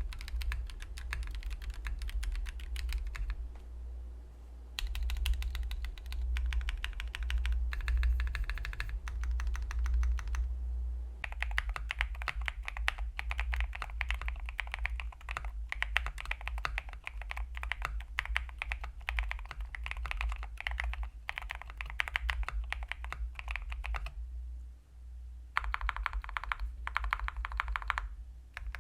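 Typing on a Wind X98 mechanical keyboard with stock Gateron Epsilon switches and PBT keycaps, in bursts of rapid clacks with brief pauses, over a steady low hum. About eleven seconds in, the typing moves to the fully foamed build, and the clacks lose most of their low-pitched body.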